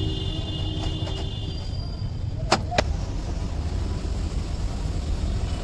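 Steady low background rumble of vehicle noise, with two sharp metallic clicks close together about two and a half seconds in as gearbox parts are handled.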